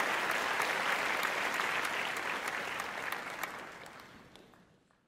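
Applause, many hands clapping, steady at first and then fading out over the last two seconds.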